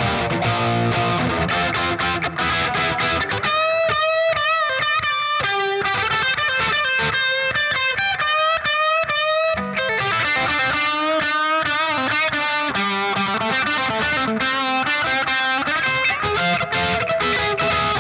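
Overdriven electric guitar through an MGL50 tube amp head, a 50-watt take on the late-70s Marshall JMP 2204, at gain 6 into a cab loaded with Greenback-type speakers. Chords open the passage. A single-note lead line with wide vibrato follows a few seconds in, then more riffing and chords.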